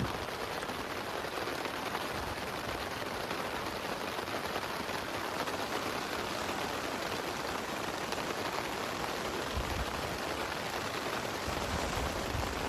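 Steady rain, an even hiss without gusts through most of it, with a low rumble of wind coming in near the end.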